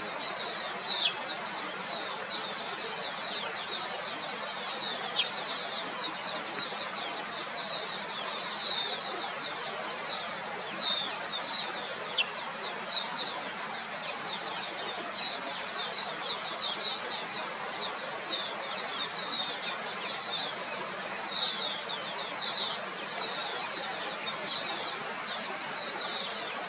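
Many short, high-pitched bird chirps, close together and continuing throughout, over a steady background hiss.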